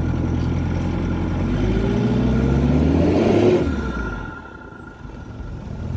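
An engine running steadily, then revving with its pitch rising for about two seconds to a loud peak, before it quickly falls away.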